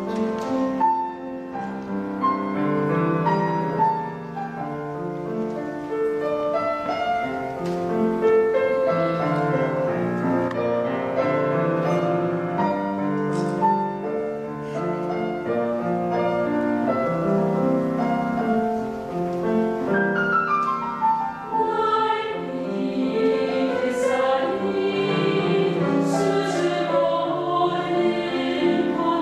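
A mixed choir singing a Korean art song with piano accompaniment, the voices in sustained, wavering held notes in the later part.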